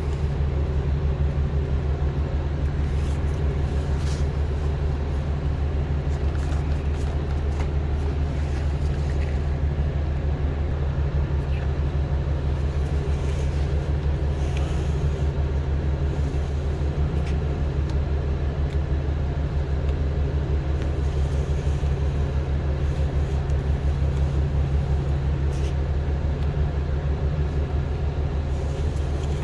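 An engine running steadily with a low, even rumble that does not change in pitch or loudness.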